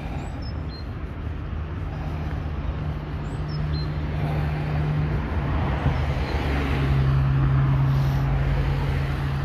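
Road traffic: cars driving past on the road alongside, with a steady low engine hum and tyre noise that swells as a car comes close in the second half.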